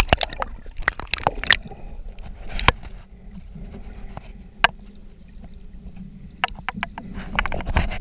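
Muffled underwater sound heard through a camera held in the water: water moving against the camera, with scattered sharp clicks and knocks, a few near the start and a quick cluster near the end.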